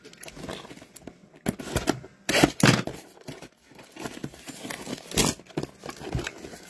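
Clear plastic wrap being torn and peeled off a cardboard blaster box of trading cards, crinkling in short bursts, loudest about two and a half and about five seconds in.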